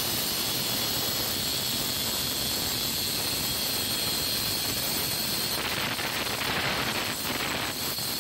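Electric angle grinder running at full speed, its cutting disc sawing through a white PVC water pipe; the sound grows rougher about five and a half seconds in.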